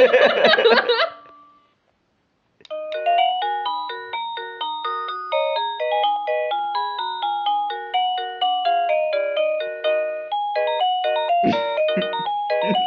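Electronic musical doorbell chime playing its tunes. A dense melody ends about a second in. After a short silence a new tune starts, plain single notes at an even pace. Near the end another, busier tune begins.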